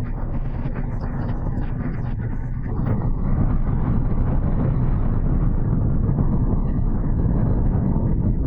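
Glacier ice calving: a few sharp cracks, then a deep rumble that swells about three seconds in and holds as the ice collapses.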